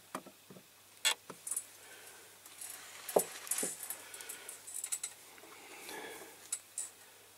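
Hands handling a diecast metal toy truck held upside down on a paper-towel-covered bench: faint rustling with a few sharp light clicks of fingers and metal, its baseplate pressed down while the glue sets.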